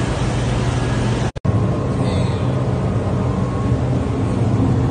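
Steady, loud rumbling rush of machinery aboard a ship with a low hum underneath, heard on phone footage; it drops out for an instant about a second and a half in.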